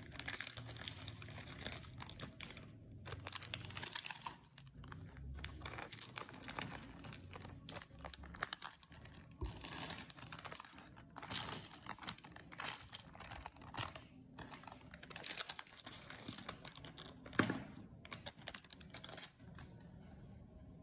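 Small plastic LEGO-style minifigure parts clicking and clattering as they are handled and set down on a tabletop, in quick irregular clicks, with one sharper clack near the end.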